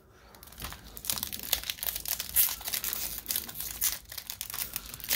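Foil wrapper of a Topps baseball card pack crinkling and tearing as it is peeled open by hand, a dense crackle that starts about half a second in.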